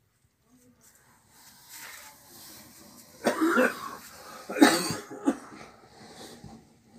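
A cat coughing: three short coughs in close succession in the middle, the second the loudest.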